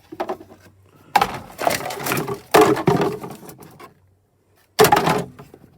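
Irregular rustling and clattering noises in a few bursts, with a brief lull before a last short burst near the end.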